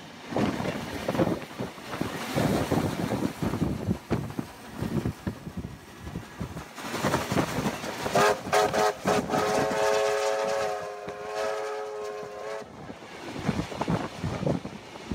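Steam train running at speed, with rumbling rail noise, then a steam locomotive whistle: a few short toots about eight seconds in, followed by one long blast of about three seconds.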